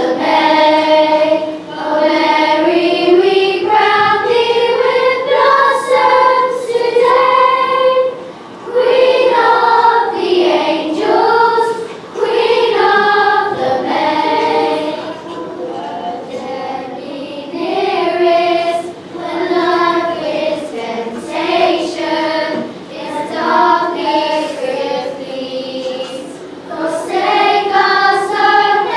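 A group of children singing a hymn together in long sung phrases with short breaks between them. The singing grows softer through the middle and louder again near the end.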